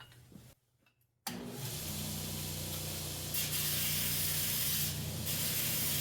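Belt grinder running with a steady motor hum, and a steel pipe-wrench handle held against the moving belt for a spark test. The hiss of metal on the abrasive grows louder about three seconds in.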